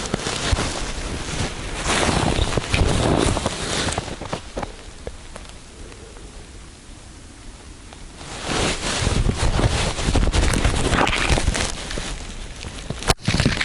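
Wind buffeting the microphone, a rough rumbling noise that is heavy for the first few seconds, eases off in the middle and picks up again about eight seconds in.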